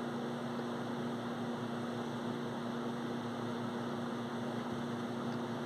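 Steady electrical hum with two fixed low tones and a faint hiss, unchanging throughout.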